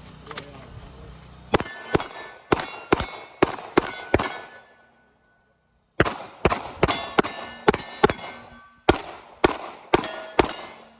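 Rapid pistol fire on steel targets, each hit ringing out with a metallic clang. About eight shots come in quick succession, then after a short break a second string of about ten.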